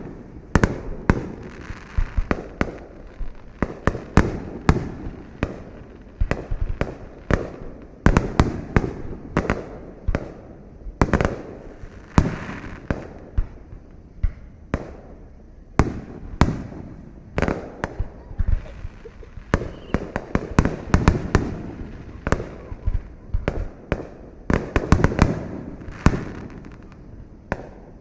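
Aerial fireworks bursting in quick succession: a dense, irregular string of sharp bangs, often several a second, each followed by a trailing rumble and echo.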